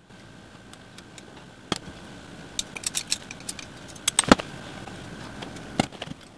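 A glass cutter scoring stained glass, then pliers snapping a piece off. A series of sharp clicks and glass snaps follows, the loudest about four seconds in, with small shards clinking.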